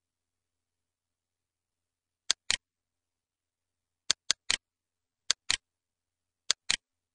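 Computer mouse clicking: about ten sharp clicks, mostly in quick pairs, starting about two seconds in.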